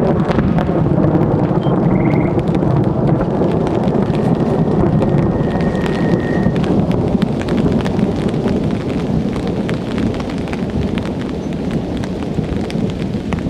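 Thunder rumbling on and on, slowly fading, over steady rain with sharp drop ticks that grow more frequent toward the end.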